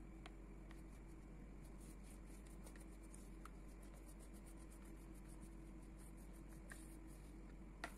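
Near silence: room tone with a steady low hum and a few faint ticks, the clearest one just before the end.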